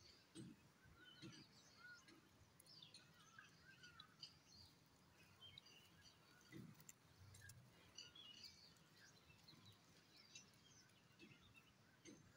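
Near silence outdoors: faint birds chirping now and then, with a few soft low thumps.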